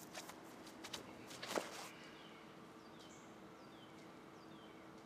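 Footsteps and scuffs on grass, a few soft thuds in the first second and a half, the loudest about a second and a half in. After that, a bird calls over and over with short falling chirps, about two a second, over a faint steady hum.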